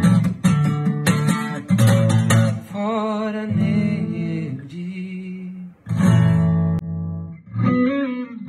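A man singing a parody song over a strummed acoustic guitar, holding some notes with a wavering vibrato, with short breaks between phrases.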